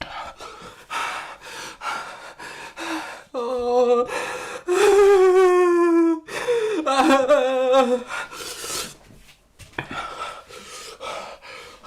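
A person gasping and breathing hard in distress, with several drawn-out, wavering moaning cries in the middle.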